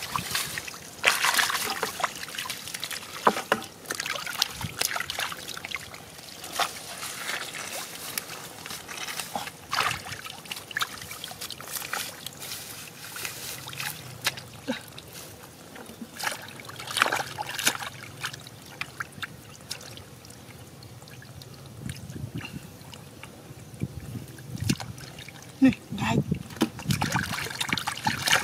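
Shallow muddy water splashing and sloshing, with many irregular sharp splashes and trickling, as catfish are caught by hand.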